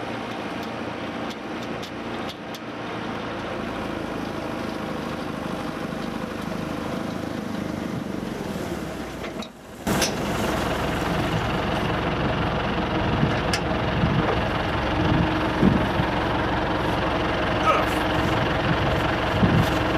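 International 574 tractor engine running steadily while driving a front-mounted snowblower that is throwing snow. The sound drops briefly about halfway through, then comes back louder.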